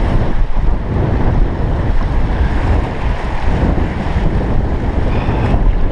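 Rushing, splashing water of a river rapid, with heavy wind buffeting the microphone.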